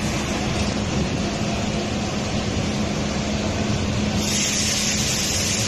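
Bus engine running steadily with a constant low hum; a steady high hiss joins about four seconds in.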